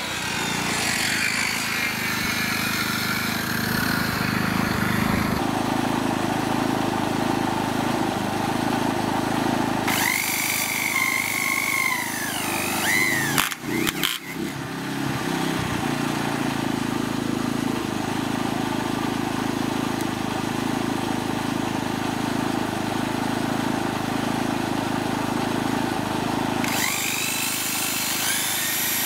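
Power tool working timber: a steady motor and cutting noise, with a high motor whine that bends up and down about ten seconds in and rises again near the end.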